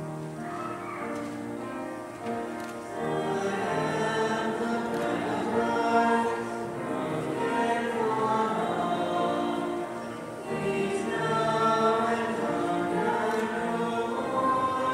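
A choir singing a hymn in slow, held notes.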